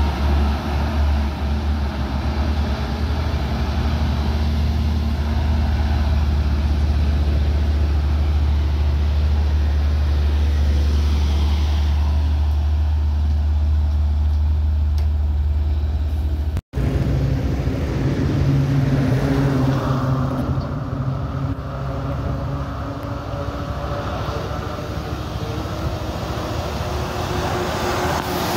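Highway traffic with heavy vehicles such as buses and trucks going by: a steady low engine drone over tyre and road noise. About two-thirds of the way through the sound cuts off for an instant and resumes as a different stretch of traffic.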